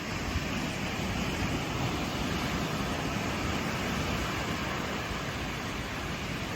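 Small ocean waves breaking and washing up the beach: a steady rush of surf that swells slightly in the middle.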